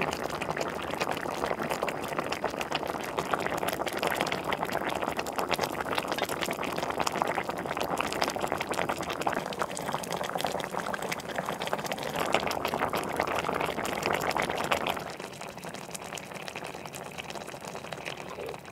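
Spicy red braising sauce of galchi-jorim (cutlassfish with radish and onion) boiling in a pot, a dense crackle of popping bubbles as the liquid reduces. It gets quieter about fifteen seconds in.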